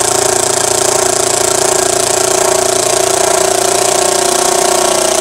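Metabo SSD 18 LT 200 BL cordless impact driver hammering as it drives a long screw into wood. The rapid impacts blend into a loud, steady rattling buzz.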